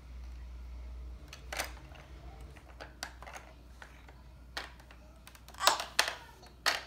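Irregular plastic clicks and taps from a baby's hands slapping and pressing the buttons and panel of a plastic baby activity walker, the loudest few coming close together near the end.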